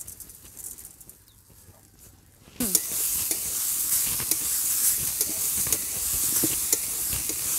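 Grated coconut and sugar sizzling in a metal karahi as a metal spatula stirs and scrapes the pan, with sharp ticks of the spatula against the metal. This is a coconut-sugar filling cooking as the sugar melts. The sizzling and stirring start suddenly about two and a half seconds in, after a quieter start.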